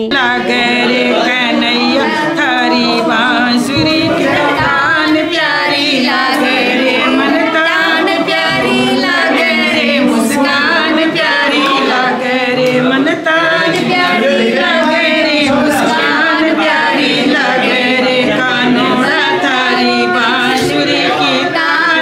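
Devotional Hindu bhajan sung by several voices together over musical accompaniment.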